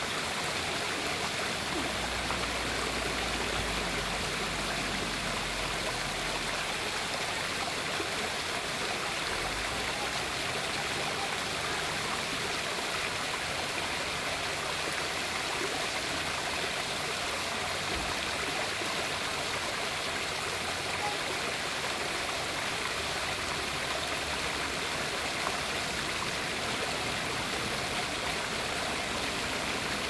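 Small waterfall spilling down stacked stone ledges into a pond: a steady rush and splash of falling water.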